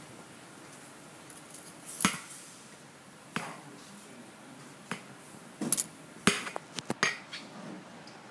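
Scattered sharp clicks and knocks: one about two seconds in, a couple more singly, then a quick cluster of several between about five and a half and seven seconds. They sit over a faint, steady room background.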